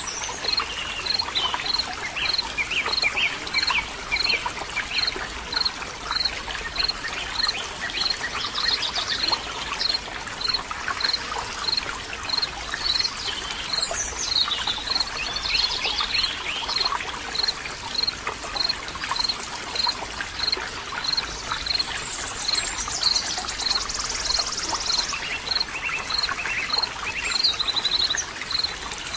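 Running water trickling and babbling steadily, with birds singing and a short high chirp repeating about twice a second.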